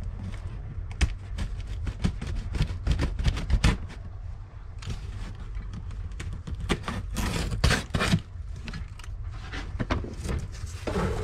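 Packing tape being scratched at and torn off a large cardboard box: irregular crackling, scraping and clicking of tape and cardboard over a low steady hum, with the box flaps pulled open near the end.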